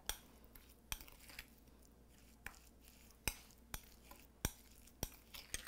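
Metal spoon stirring a thick marinade paste in a glass bowl, with faint, scattered clinks of the spoon against the glass, about seven in all.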